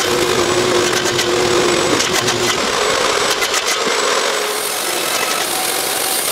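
Wood-Mizer LT50 band sawmill running steadily, with a few knocks and clatters of boards about two to four seconds in.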